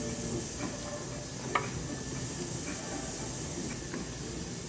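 Baby carrots dropped into a speckled enamel roasting pan of pot roast, making a few light knocks, the loudest about one and a half seconds in, over a steady hiss.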